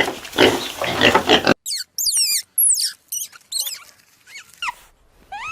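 Farm animal calls, noisy and grunting, repeating about twice a second for a second and a half, then cut off abruptly. After the cut come a string of short, high, falling chirps from another animal and, near the end, one arched, mewing call.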